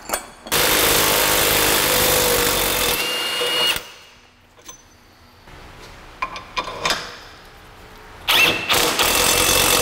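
Cordless impact wrench running in two bursts, one of about three seconds starting half a second in and another near the end, backing out rear suspension bolts. A few light metal clicks come in the quieter gap between the bursts.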